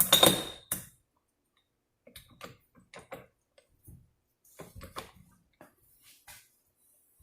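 Metal automatic-transmission parts being handled: a short clatter of metal on metal with a brief ring at first, then scattered light clicks and taps.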